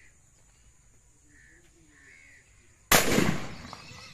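Faint short bird calls, then about three seconds in a single shotgun shot, sudden and loud, dying away over about a second.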